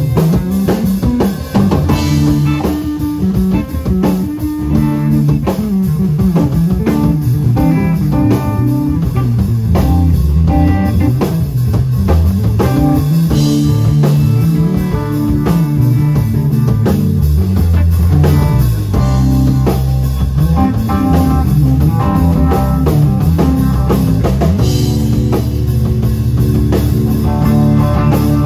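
Live instrumental rock from a trio: electric guitar, electric bass and drum kit playing together, with a busy, prominent bass line moving under the guitar and drums.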